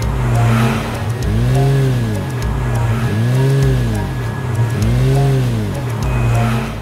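Car engine sound effect revving up and falling back, three times in a row less than two seconds apart, each rev rising then dropping in pitch.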